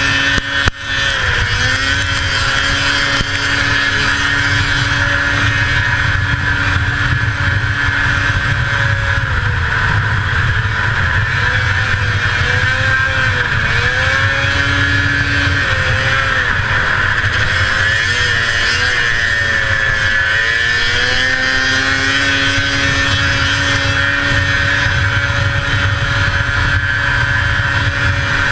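1981 Arctic Cat El Tigre 6000's 500cc two-stroke engine running hard at high revs under race load, heard up close from the machine. The pitch holds steady for long stretches and dips briefly a few times before climbing back, with a short drop in level about half a second in.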